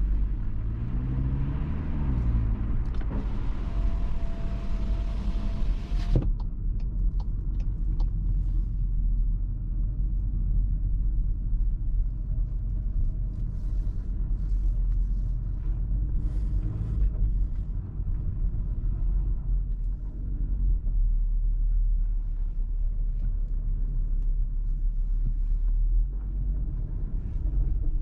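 The Cupra Formentor VZ5's 2.5 TFSI five-cylinder engine and road rumble while driving. The engine note rises in pitch over the first two seconds under acceleration, then falls back and settles into a steady low rumble. A hiss cuts off suddenly about six seconds in.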